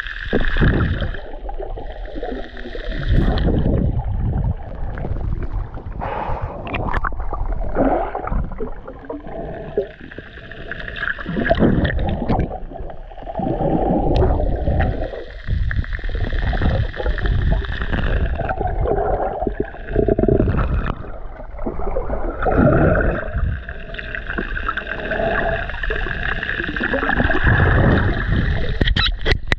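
Underwater camera audio: water gurgling and sloshing around the camera in low surges every couple of seconds, with a faint steady high hum underneath.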